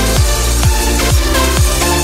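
Electronic dance music with a steady kick drum, a little over two beats a second, under sustained synth chords.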